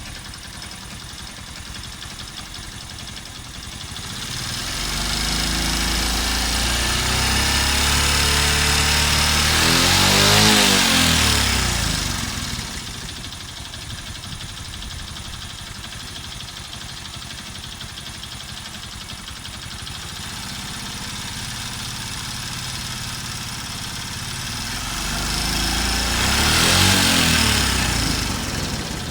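Honda Super Cub's small single-cylinder four-stroke engine running, swelling louder twice, about ten seconds in and again near the end, between steadier, quieter running. The owner says it is making an abnormal noise.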